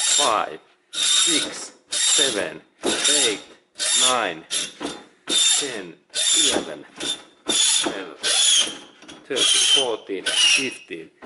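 Hand hacksaw with a fine-tooth steel-cutting blade sawing through a small steel bolt held in a bench vise. It makes steady back-and-forth rasping strokes, about fourteen of them, a little over one a second. Some strokes carry a wavering ringing tone from the blade.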